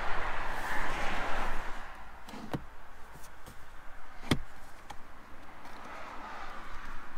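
Rustling handling noise, then two sharp plastic clicks under two seconds apart, the second the louder, from the centre-console armrest of a Renault Megane E-Tech as a hand slides it back.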